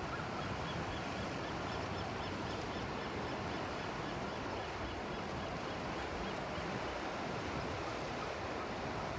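Ocean surf below the cliffs, a steady wash of waves. Faint rapid high chirps repeat over the first few seconds.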